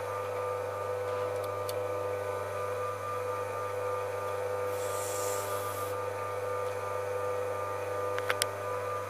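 Emerson T55ML-985 240 V induction motor running steadily: a continuous electrical hum made of several steady tones. A short hiss comes about halfway, and two sharp clicks near the end.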